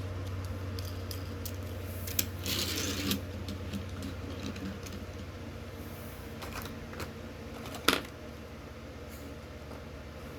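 Toy car packaging being handled: scattered light clicks and rustles, a brief crinkle a couple of seconds in and one sharp click about three-quarters of the way through, over a steady low hum.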